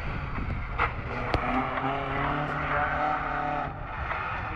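A classic racing car's engine running at high revs as it is driven hard around the arena, the note holding steady and then dropping away shortly before the end. Two sharp cracks come in the first second and a half.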